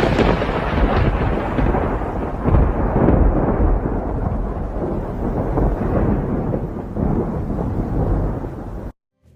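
A loud, deep rumbling noise that starts suddenly, slowly dies down and then cuts off abruptly near the end.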